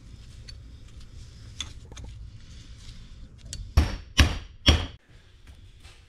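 Three hammer blows on a large socket, driving a rod wiper seal into a hydraulic cylinder's gland: sharp metallic strikes about half a second apart, each with a short ring, a little under four seconds in. Before them come a few light clinks of the parts being handled.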